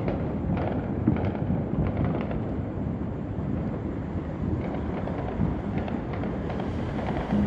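Many distant fireworks going off at once: a continuous low rumble of booms with scattered small pops and crackles, no single bang standing out.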